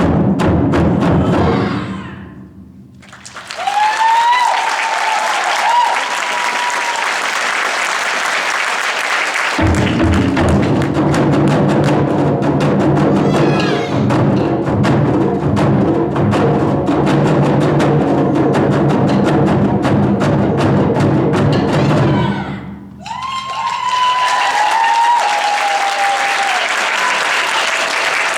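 Ensemble of Japanese taiko drums playing fast, dense strokes. The sound drops away briefly twice, and each time a high sliding pitched line comes in as it picks up again; from about a third of the way in, heavy low drum strokes join.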